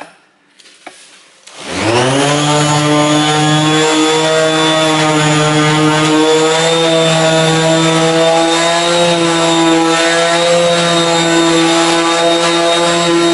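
Hand-held orbital polisher with a foam pad switched on about a second and a half in, spinning up with a short rising whine and then running steadily while it buffs polishing compound on a plastic headlight lens.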